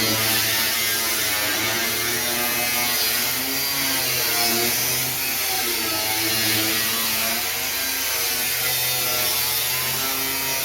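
An electric power tool's motor running continuously, its pitch drifting up and down.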